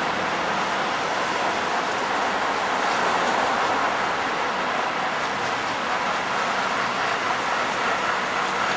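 Botchan Ressha, a diesel-powered replica steam locomotive, approaching slowly along a street tram line: a steady, even running noise with no distinct whistle or knocks.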